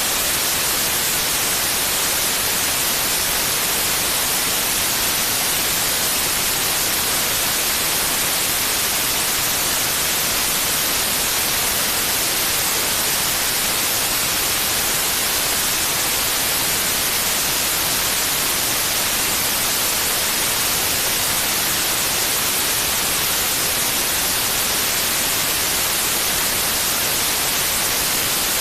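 Steady white noise: an even, unchanging hiss, bright and strongest in the high end, played as a sleep aid for a baby.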